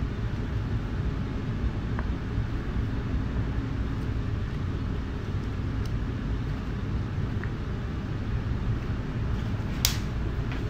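Steady low background rumble, with a few faint clicks and one sharp knock near the end.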